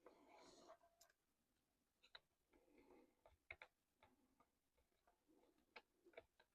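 Near silence with faint, scattered clicks and taps, a few close together, of small tools and plastic or metal parts being handled during an RC truck teardown.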